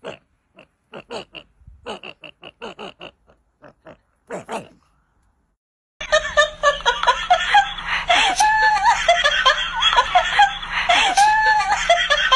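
A run of short, quick vocal bursts, then from about six seconds in loud, continuous laughter and squealing from several voices.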